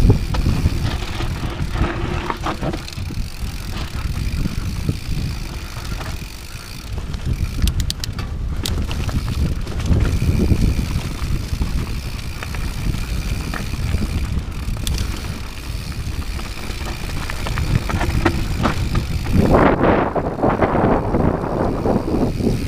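Rocky Mountain 790 MSL mountain bike rolling fast down a dry dirt trail: continuous tyre rumble over dirt and stones, scattered clicks and knocks from the bike over bumps, and wind buffeting the camera's microphone. The rolling noise grows louder and grittier near the end.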